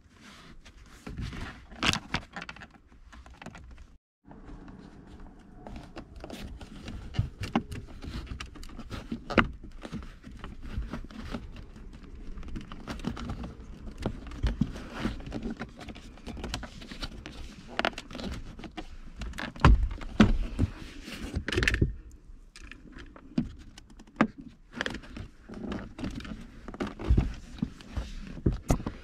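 Hands working a leather shift boot and its plastic frame into a car's centre console: irregular rubbing and crinkling of leather with scattered clicks and knocks of plastic trim. There is a brief silent break about four seconds in.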